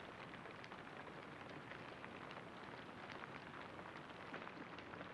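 Faint, steady background hiss sprinkled with light, irregular crackling ticks.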